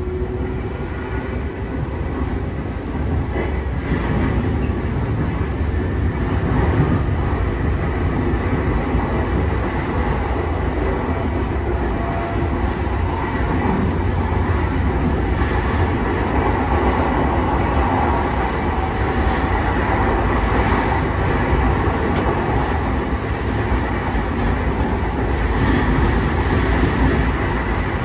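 Inside a JR East E233-0 series electric commuter train running on jointed rail: a steady low rumble with the wheels clacking over rail joints now and then.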